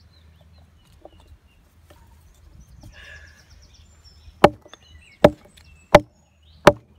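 Camp axe chopping into a short round of hard seasoned wood: four sharp blows about three quarters of a second apart, starting about four and a half seconds in.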